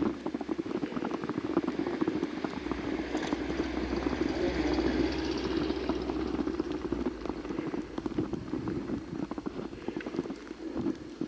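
Footsteps crunching in fresh snow, a quick, continuous run of small crunches. Between about three and seven seconds in, a rushing noise with a low rumble underneath swells and fades.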